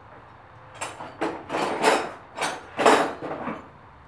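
Steel wrenches clanking and rattling in a metal toolbox as someone rummages through it for the right size, a run of about six clatters in the middle of the stretch.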